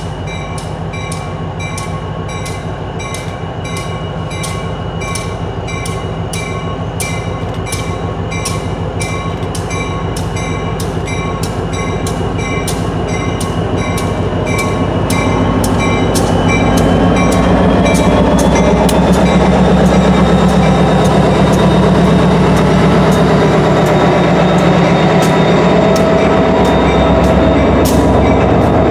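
Train approaching and running past, its deep rumble swelling about halfway through and staying loud. A bell rings over it throughout, about two strikes a second, like a grade-crossing bell.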